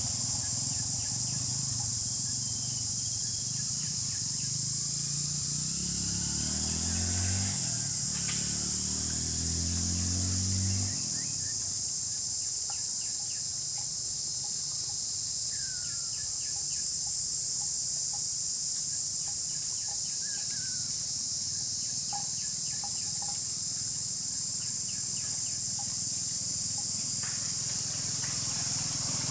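Steady high-pitched chorus of insects in tropical vegetation. A low droning sound swells and fades about five to eleven seconds in, and a few short bird-like chirps come later.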